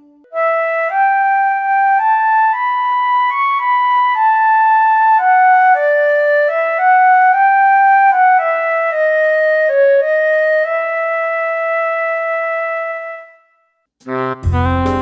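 Roland Aerophone AE-10 digital wind synthesizer playing its flute preset: a solo melody of single notes stepping up and down, ending on a long held note. After a short pause near the end, the baritone sax preset comes in with low notes.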